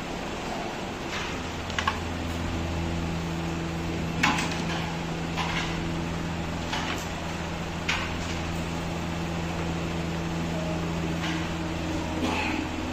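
Carrom striker and wooden carrom coins clicking sharply against each other and the board, in about eight separate shots and taps; the loudest comes about four seconds in. A steady low hum runs underneath.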